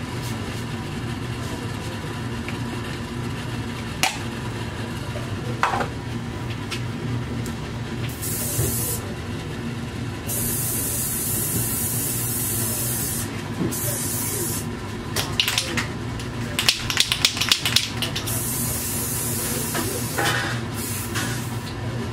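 Aerosol spray-paint can hissing in several short bursts, each starting and stopping sharply, followed by a quick run of rattling clicks, over a steady low hum.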